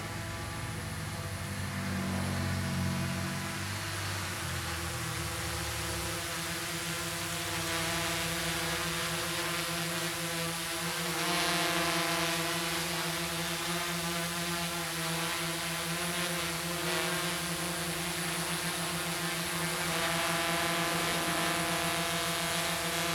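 Quadcopter's four DYS D4215 650kv pancake brushless motors spinning 10x4.7 inch propellers in flight and hover: a steady, multi-tone propeller buzz whose pitches shift slightly as the motors adjust. It grows louder as the craft comes in close.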